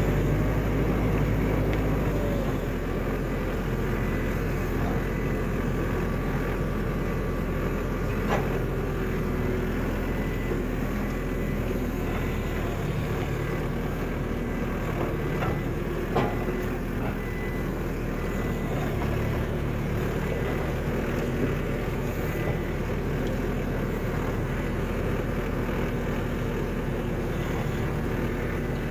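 Skid steer engine running steadily, its note changing a few times as the load changes, with a couple of sharp knocks, the louder one about two-thirds of the way through.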